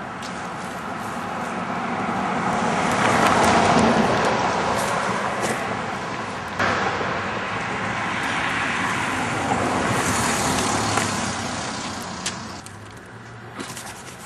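Road traffic passing close by: engine and tyre noise from vehicles swelling and fading, with the loudest pass about four seconds in and another around ten seconds. No horn is heard.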